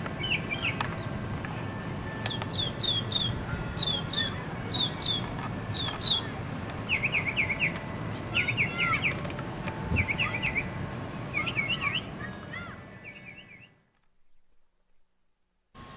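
Birds chirping in quick repeated calls over a low steady background noise, fading away about thirteen seconds in.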